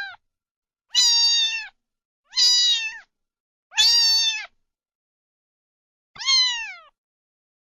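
A kitten meowing: four high-pitched meows, each about half a second long and each falling in pitch at the end. The last comes after a longer pause and drops most steeply.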